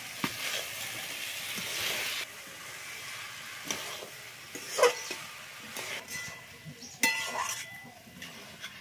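Metal spatula stirring freshly added potato sticks into frying lentils and spices in a metal wok, scraping and clinking against the pan. The sizzling is loudest in the first two seconds, then dies down as the cold potatoes go in.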